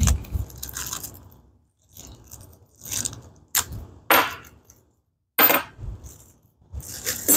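Small metal cabinet door-arm hardware clinking and scraping as it is handled: a string of separate light clinks and rattles with short pauses between them.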